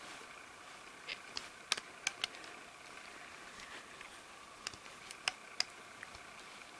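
Scattered light clicks and ticks as rubber bands are stretched and hooked onto the plastic pegs of a Rainbow Loom, over faint steady hiss.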